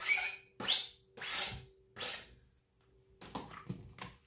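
Utensil scraping shredded chicken off a flexible plastic cutting board into an Instant Pot's inner pot: four quick, squeaky scrapes, then softer scraping and clatter near the end.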